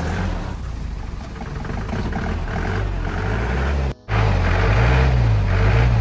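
Mahindra off-road jeep's engine running under load as it crawls through mud, its revs rising and falling. The sound drops out for a moment about four seconds in, then the engine comes back louder.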